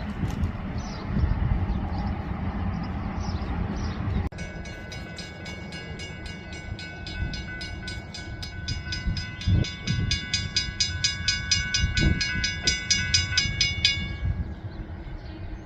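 Low rail-vehicle rumble for the first few seconds. After an abrupt cut, a railroad grade-crossing bell rings steadily at about three strokes a second and fades out near the end, with a couple of low thumps under it.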